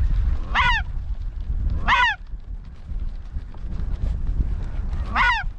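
Geese honking: three single downward-arching calls, about half a second in, about two seconds in, and near the end, over a steady low rumble of wind on the microphone.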